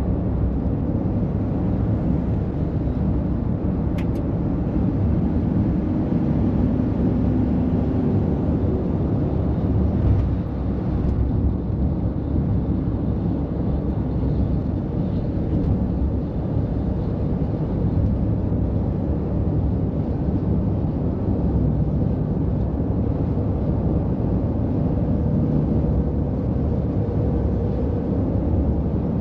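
Heavy diesel trucks in passing road traffic: a steady low engine and tyre rumble.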